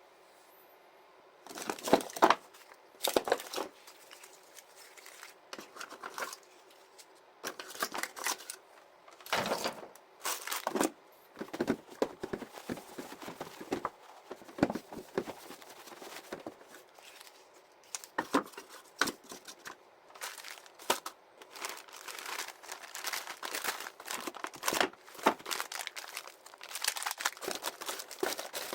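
Crinkling and rustling of handled packaging, such as plastic bags or wrappers, in irregular short bursts.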